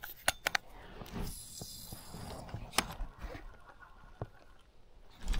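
Fishing reel being cranked with a soft, scratchy whir, broken by several sharp clicks, three close together just after the start and another about three seconds in.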